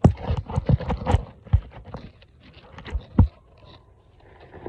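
Footsteps and knocks on a hard surface, irregular and closely bunched in the first second, then a few single thuds spaced apart.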